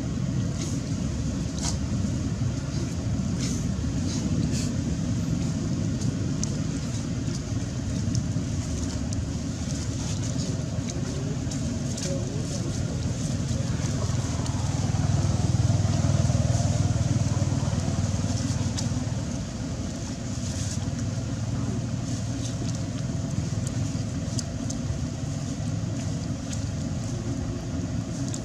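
Low, steady rumble of motor traffic, louder for a few seconds about midway, with faint scattered clicks.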